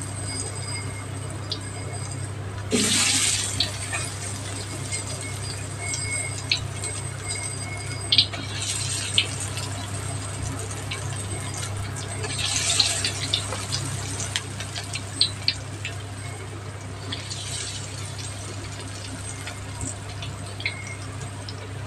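Battered cauliflower florets deep-frying in hot oil in a steel wok: a steady sizzle that swells louder now and then, with a few sharp pops of spitting oil. A low steady hum runs underneath.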